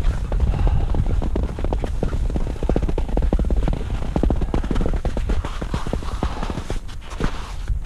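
Skis scraping and chattering over bumpy, soft spring snow: a rapid, irregular run of clicks and scrapes over a low rumble of wind buffeting the microphone. It eases briefly near the end.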